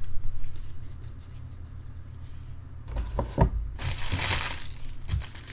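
Crinkling and rustling of paper or plastic being handled at the table, loudest about four seconds in, with a couple of low knocks just before, over a steady low electrical hum.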